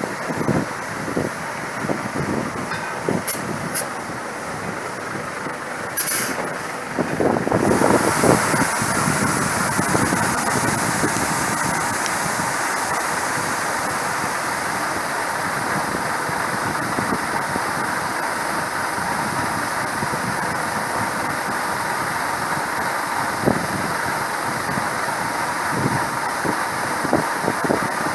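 A truck engine running with a few knocks and clicks, then about eight seconds in a steady rushing hiss begins and holds: grain pouring from an overhead bin spout into the truck's cargo box.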